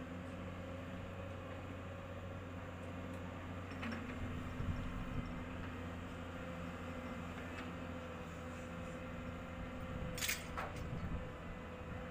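Heavy diesel engine of an excavator running steadily, with a few sharp clanks, the loudest about ten seconds in.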